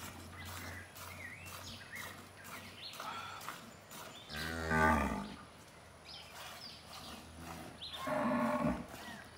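Cattle mooing twice: a long, loud moo about halfway through and another near the end.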